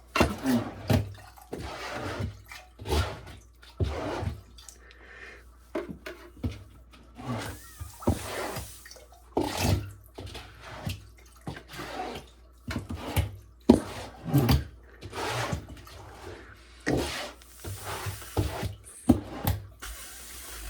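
Irregular knocks, clunks and scrapes with some sloshing water: things being handled and moved about in a wet shower stall.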